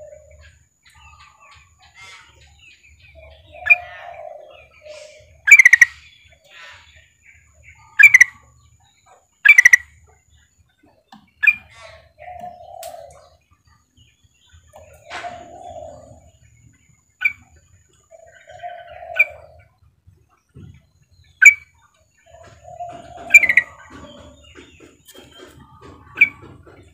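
Female yellow-vented bulbul (trucukan) calling: loud, sharp chirps every one to three seconds, with softer, lower warbled notes between them. This is the call used to lure a male into answering.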